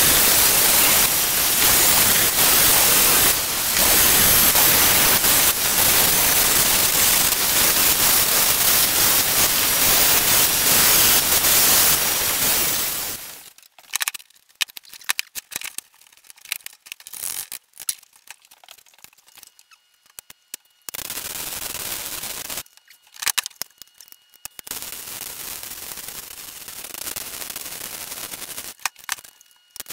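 An angle grinder runs loud and steady on steel for about thirteen seconds, cleaning up the metal parts. It stops, and then comes crackling welding-arc noise: short tack welds and a few longer steady beads, joining the steel supports.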